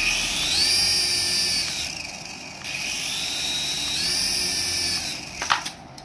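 Small electric motors of a hand-held toy RC helicopter spinning its coaxial rotors: a high whine that starts suddenly, rises in pitch as the throttle goes up, eases off and rises again, then cuts off a little after five seconds. A few sharp clicks of handling follow near the end.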